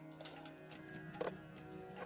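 Background music with sustained tones, over which come a few sharp clicks, the loudest about a second in.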